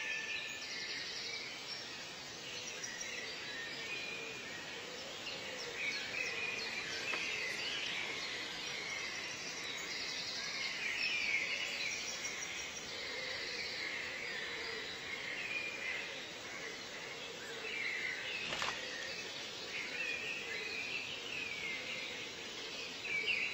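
Many small birds chirping and calling over a steady background hiss, with a single sharp click late on.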